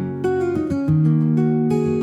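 Background acoustic guitar music, strummed chords changing every second or so.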